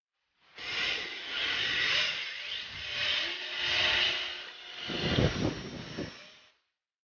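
Electric 1/10-scale RC drift cars running on asphalt: a hissing whir of motors and sliding tyres that swells and fades several times. About five seconds in, a louder low rumble joins it briefly.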